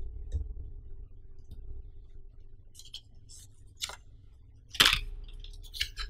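Stiff printed card packaging handled and flipped over by hand: soft handling noise, then a run of short, crisp rustles and crackles from about three seconds in, the loudest just before five seconds.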